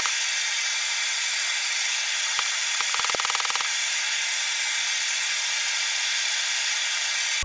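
Steady hissing roar of a gas forge burner running, with two short bursts of rapid clicking, one at the start and one about three seconds in, and a couple of faint single clicks.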